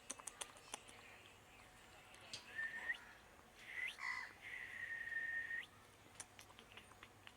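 High, clear whistled bird calls: a few quick chirps at the start, then short whistles and one long held note of about a second near the middle.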